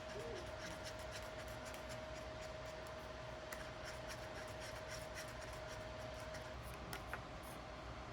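Close scratching and rubbing of hand work, with many small clicks through the middle. A faint steady tone runs underneath and stops about two-thirds of the way in.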